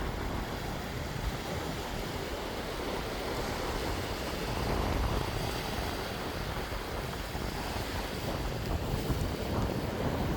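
Wind buffeting the microphone over a steady wash of sea surf, swelling a little about halfway through.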